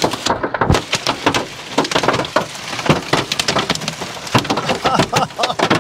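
Heavy rain falling, a dense, continuous patter of drops striking a hard surface close by.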